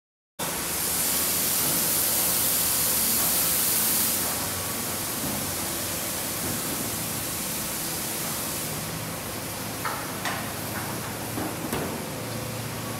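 Car wash tunnel running: a steady hiss of water spray and equipment starts abruptly about half a second in, louder and sharper for the first few seconds before settling to a steady rush. A few short knocks come near the end.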